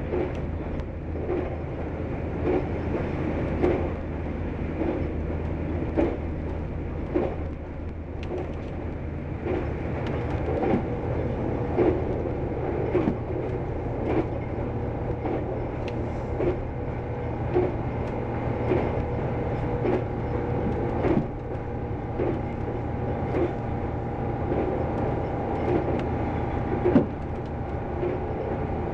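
Diesel railcar (Bombardier Itino) running at speed, heard from the driver's cab: a steady engine drone with short clacks from the wheels on the track about once a second. The engine note steps up slightly about ten seconds in.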